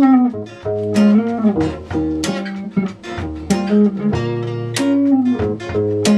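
Live indie folk band playing an instrumental passage: acoustic guitar picking ringing notes over a low bass line, with some notes sliding down in pitch.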